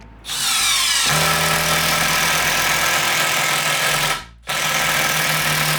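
Milwaukee M12 brushless cordless drill driving a wood screw into a 2x4 stud: the motor spins up with a rising whine and runs steadily, stops briefly about four seconds in, then runs again.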